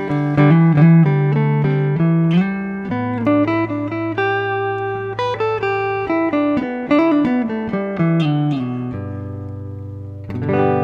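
Electric guitar playing a run of pentatonic double-stops and triads joined by passing filler notes, the notes changing about every half second. A note is held near the end, then a chord is struck and left ringing.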